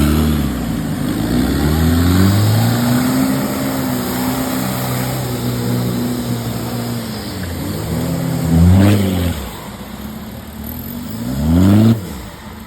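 Off-road 4x4's engine revving up and down as it is worked hard, with two sharp bursts of revs near the end, the second cut off abruptly.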